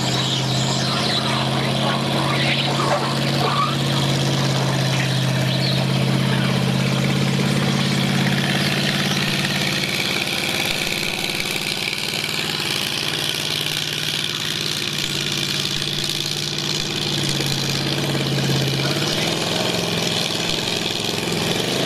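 Flathead Ford V8 in a 1949 Ford 8N tractor running steadily under heavy load as it drags a pulling sled. Its note dips slightly about halfway through and shifts again near the end.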